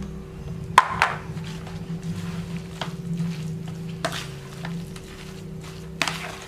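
A metal spoon stirring crumbled tofu and chopped boiled cassava leaves in a plastic bowl: soft scraping and squishing, with a few sharp knocks of the spoon against the bowl, the loudest about a second in. A steady low hum runs underneath.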